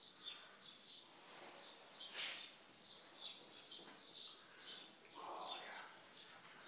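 Small birds chirping faintly in quick repeated short high notes, several a second, with a brief scuffling noise about two seconds in.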